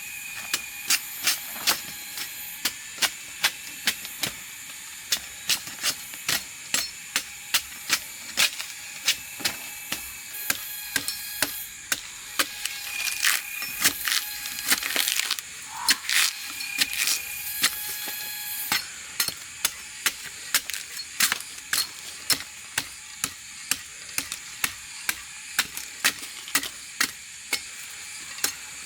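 A long run of sharp knocks or taps, about two a second and uneven, over a steady high hiss.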